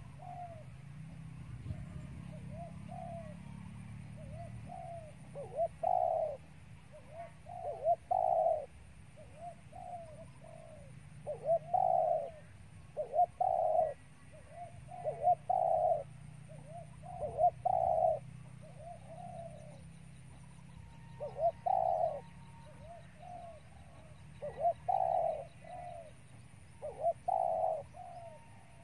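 Spotted dove cooing: repeated low, mellow coo phrases, with louder notes about every two seconds.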